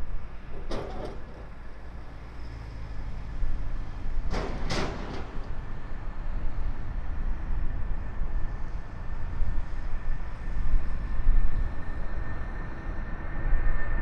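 Jet airliner engine noise: a steady low rumble with a thin, steady whine that grows louder near the end. Two brief whooshes cut across it about a second and about four and a half seconds in.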